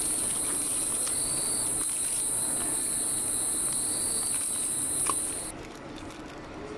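A steady high-pitched whine over shop background noise, cutting off suddenly about five and a half seconds in, with faint rustles and clicks of plastic-packaged goods being handled.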